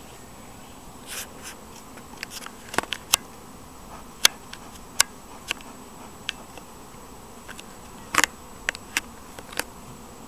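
Honeybees buzzing steadily around an opened hive, over which come scattered sharp clicks and knocks of beekeeping equipment being handled, with a loud cluster about eight seconds in.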